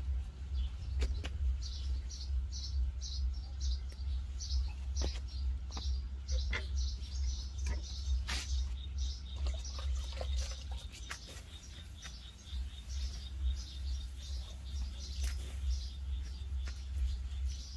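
A bird chirping over and over, about two or three short high chirps a second, over a steady low rumble, with a few sharp clicks and knocks scattered through.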